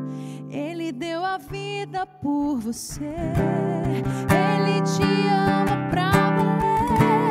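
Slow, tender song: acoustic guitar picked fingerstyle, with a woman's voice singing sustained notes with vibrato over it.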